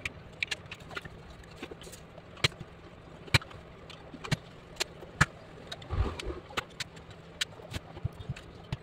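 Irregular sharp clicks and knocks as the open metal case of an electric-rickshaw battery charger is shifted and handled on a silicone work mat, with a duller thump about six seconds in.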